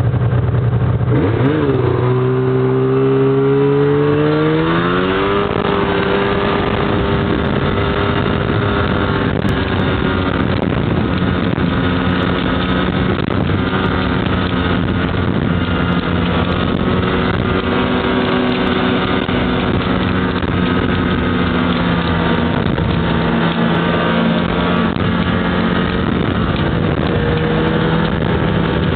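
Snowmobile engine accelerating: its pitch climbs over the first several seconds, then holds steady as the sled cruises along the trail.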